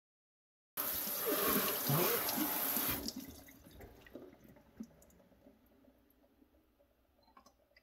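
Kitchen faucet running onto a disc and into a stainless steel sink while a sponge scrubs the dye-bed glue off the plastic. The water starts about a second in and stops abruptly about three seconds in, leaving faint drips and trickling.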